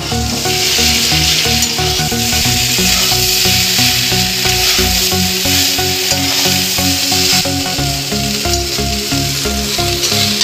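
Boiled chow mein noodles and scrambled egg sizzling steadily in a hot metal wok as they are tossed with a spatula. Background music plays underneath.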